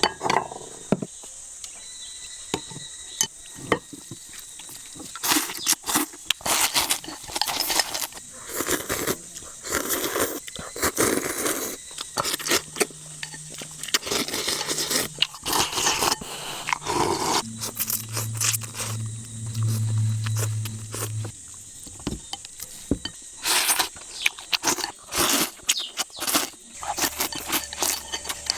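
Irregular scraping and crunching with many sharp clicks, with a low steady hum for a few seconds about two thirds of the way through.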